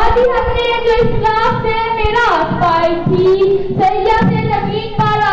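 A boy singing solo into a microphone, holding long notes that slide up and down in pitch.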